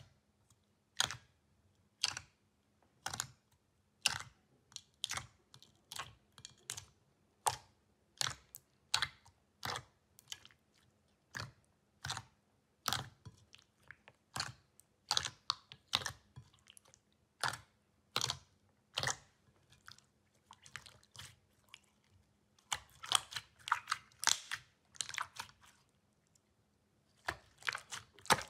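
Clear blue jelly slime being pressed and squished by hand in a bowl, making sharp sticky pops and clicks about once a second, which come faster and crowd together in the last few seconds.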